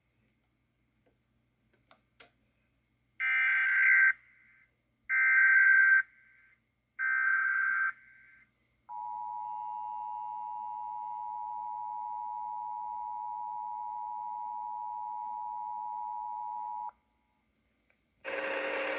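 Emergency Alert System test: three short bursts of SAME header data, about two seconds apart, then the EAS attention signal, a steady two-tone 853 and 960 Hz tone held for about eight seconds. A voice announcement starts just before the end.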